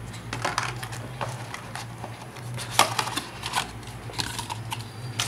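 Cardboard phone box and its inner tray handled on a wooden table, with plastic accessory bags rustling: irregular taps, scrapes and clicks, one sharper knock a little past the middle, over a steady low hum.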